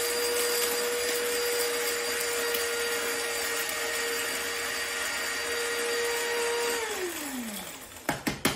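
Electric blade coffee grinder running steadily at one pitch as it grinds whole allspice berries toward a fine powder. About seven seconds in the motor is released and spins down with a falling whine, followed by several quick sharp knocks near the end.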